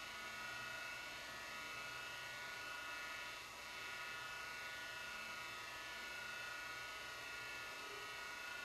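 Steady electrical hiss with a thin high whine and a low hum, with no footsteps or knocks on the metal grates.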